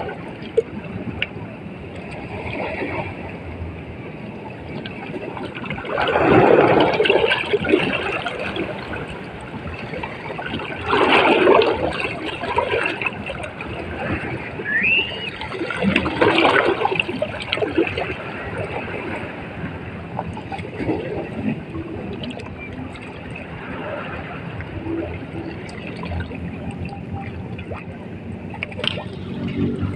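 Small sea waves washing in and trickling back at the water's edge, with three louder surges about five seconds apart.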